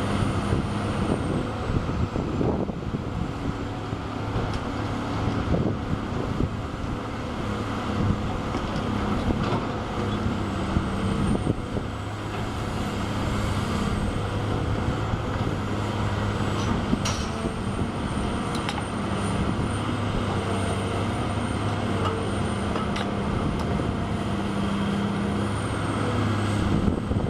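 Hydraulic excavator's diesel engine running steadily, swelling and easing as it works under digging load, with a few sharp knocks.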